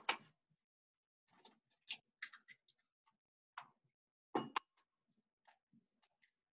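Faint, scattered clicks and taps of eggs and eggshells against a glass bowl and the countertop as eggs are cracked and the shells set down, the loudest a pair of knocks about four and a half seconds in.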